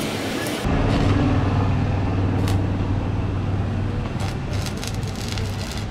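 Arc welding on a steel frame: a steady low electrical hum from the welding machine, with a few short crackles from the arc. The hum starts abruptly about a second in.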